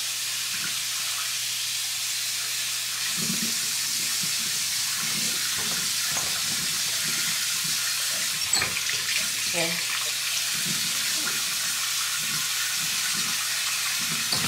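Bathroom sink tap running steadily, with hands splashing and rubbing in the water from about three seconds in.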